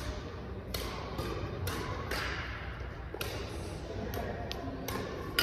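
Badminton rackets striking a shuttlecock in a rally, a string of about ten sharp hits, roughly two a second, echoing in a large hall.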